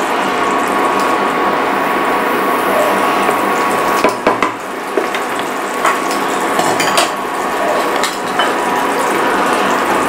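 Papdi beans and brinjal sizzling in a non-stick pan on an induction cooktop, stirred with a wooden spatula, with a few sharp knocks against the pan around the middle.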